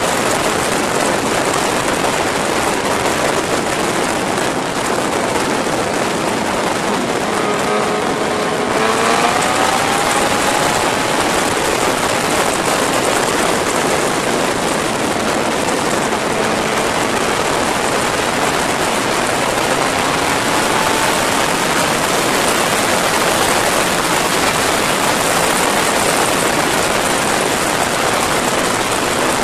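Wind rushing hard over the microphone of a Yamaha sport motorcycle ridden at about 160 km/h, with the engine's note faint beneath it, rising in pitch about eight seconds in and again faintly past the middle as the rider accelerates.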